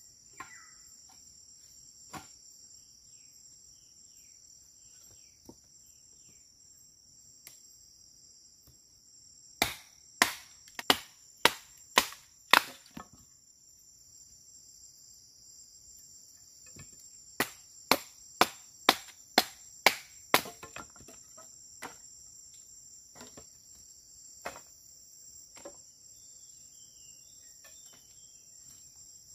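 Steady high-pitched chorus of forest insects, crickets or cicadas, interrupted by two runs of sharp strikes at about two a second: six about ten seconds in and seven more about seventeen seconds in. The strikes are the loudest sounds.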